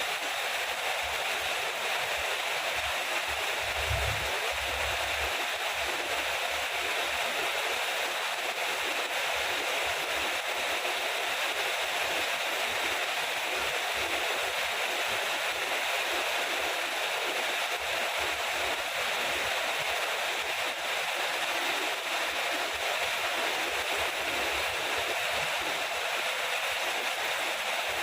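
Steady rain falling, an even unbroken hiss of water, with a brief low rumble about four seconds in.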